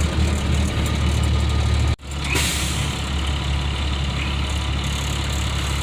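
Tow truck engine running steadily at low revs. The sound cuts out abruptly for an instant about two seconds in, then resumes.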